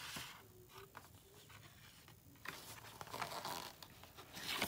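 Soft rustling and scraping of printed photo cards being handled and slid across a tabletop, louder in the last second or so.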